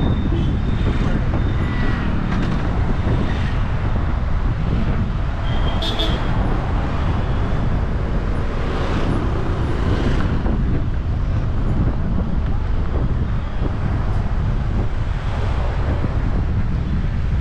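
Car driving along a road: steady engine and tyre noise, with a brief high squeal about six seconds in.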